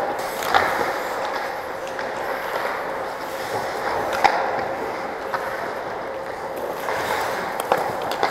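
Ice skate blades scraping and carving on the rink ice, with a few sharp clacks of hockey sticks and puck.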